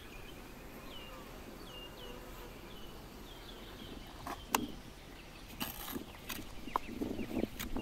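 Bees buzzing around wooden beehives, with a bird giving short falling chirps. Then, from about four seconds in, a steel trowel clinks on bricks and scrapes wet mortar, with a sharp knock near the middle and scraping toward the end.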